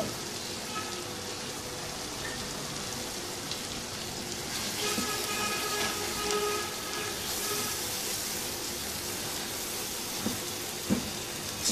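Dal and chicken sizzling gently in a ceramic-coated pan on a gas burner, with a silicone spatula stirring and scraping through the thick mixture in the second half and a couple of light knocks near the end.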